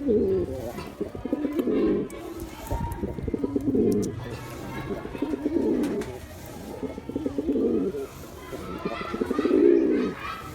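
Male pigeon cooing: low, fast-pulsing coo phrases repeated about every two seconds.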